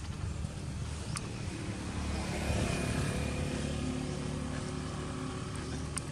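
Engine of a passing motor vehicle over a low rumble, growing louder to a peak about two and a half seconds in, then fading.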